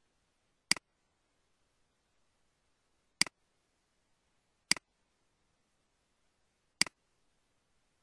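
Four sharp computer mouse clicks, each a press followed at once by its softer release, spaced unevenly: the first under a second in, then two about a second and a half apart in the middle, and the last near the end.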